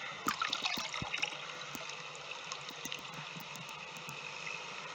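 Salt water with live wiring in it: a steady hiss with many scattered small clicks.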